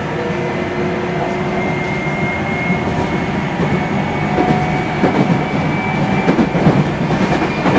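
Running sound inside a JR Central 373 series electric multiple unit: steady motor and inverter tones over the rumble of the wheels on the rails. From about halfway in, clicks from the wheels crossing rail joints come more often.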